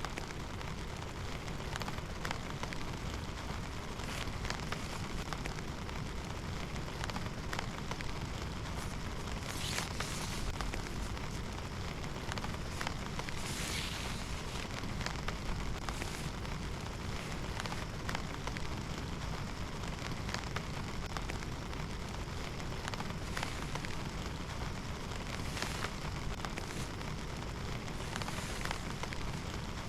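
Steady rain falling, with many sharp scattered ticks of drops on a surface and a few brief louder hissing swells.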